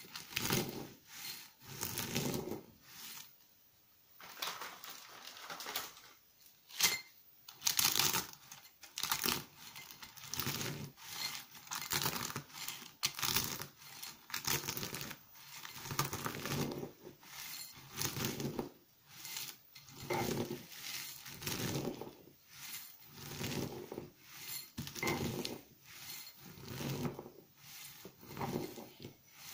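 Dry, grated dark laundry soap flakes crunching and crackling as a metal pestle presses them in a metal mortar, in repeated strokes about once a second. One sharp click about seven seconds in.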